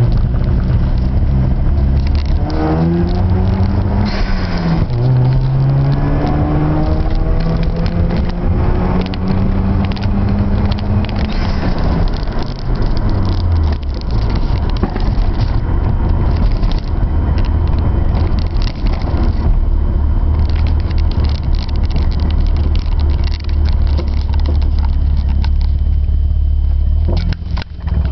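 Mazda RX-7 FD3S twin-rotor 13B rotary engine running with the throttle held wide open but misfiring. The note climbs in the first few seconds, holds, drops about halfway through and stays low, with rough crackling all the way.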